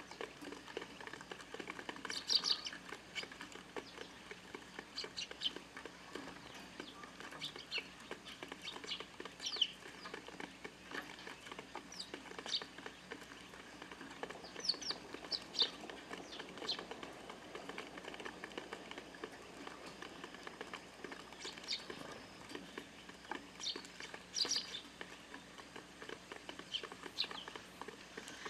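Eurasian tree sparrows chirping, short high calls coming in small scattered clusters, several birds at once.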